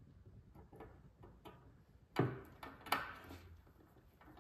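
Light clicks and taps as a metal drawer-slide rail and a screw are handled and set in place on a plywood drawer bottom. The two sharpest knocks come about two and three seconds in.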